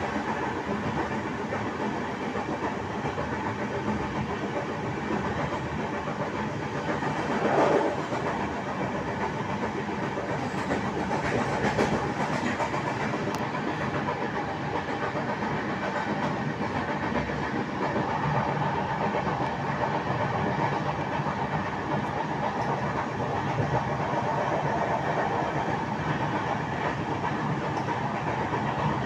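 Express passenger train running at speed, heard from inside the coach: the steady rolling noise of wheels on the track, with one brief louder swell about eight seconds in.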